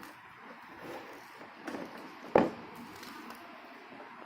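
Quiet handling of the PC case's front-panel connector leads at the motherboard, with small ticks and one sharp plastic click about two and a half seconds in.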